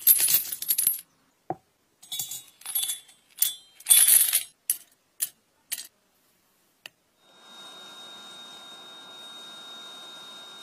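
Short pieces of copper pipe dropping and clinking against each other in a run of bright metallic clatters and single clinks. From about seven seconds in they give way to a steady hiss with a faint high whine.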